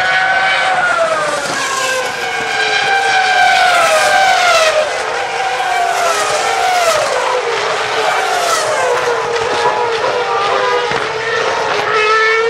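Formula One cars' 2.4-litre V8 engines at very high revs going by, several sounding at once, each pitch sliding down again and again, with one climbing near the end.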